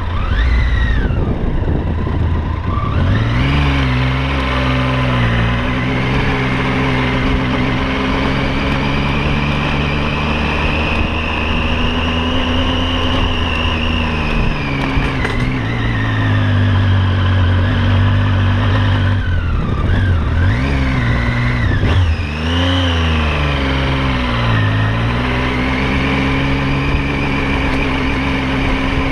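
Triumph Tiger 800 XC's three-cylinder engine running under way. Its pitch rises and falls several times as the rider accelerates and eases off, with dips about a quarter and two-thirds of the way through.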